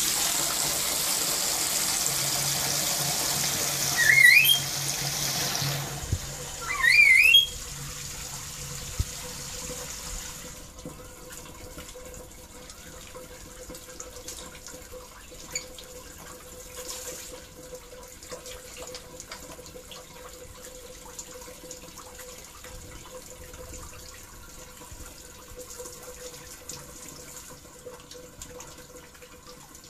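Steady rush of running and splashing water for about the first ten seconds while a black-capped lory bathes, broken by two short rising chirps from the lory about four and seven seconds in. After that only a faint steady hum remains.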